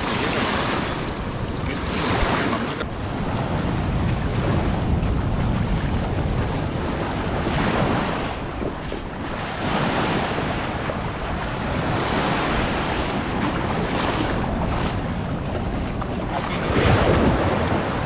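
Small sea waves breaking and washing over the shallow shore, rising and falling every few seconds, with wind buffeting the microphone.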